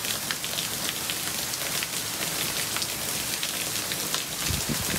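A downpour of rain with small hail hitting the ground and surfaces: a steady hiss dotted with many sharp ticks from the pellets. A brief low rumble comes about four and a half seconds in.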